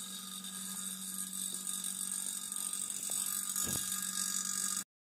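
Electric refrigerant vacuum pump running with a steady hum and hiss, evacuating a car's air-conditioning system after its compressor has been refitted.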